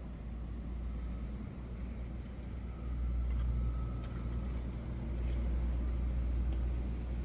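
Steady low rumble that grows louder about three seconds in.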